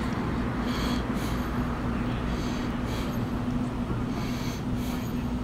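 Steady low hum of an idling vehicle engine with a constant drone, and faint high chirps coming and going every second or so.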